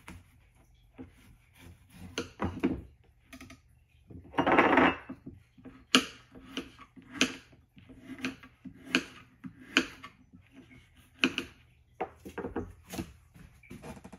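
Kitchen knife cutting fresh coconut meat into small chunks on a plastic cutting board: a series of irregularly spaced sharp knocks of the blade on the board, with a longer scraping cut between about four and five seconds in.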